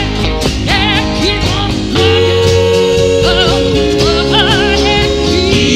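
Live acoustic country band: a woman singing with vibrato over acoustic guitars and upright bass, with a long held note from about two seconds in.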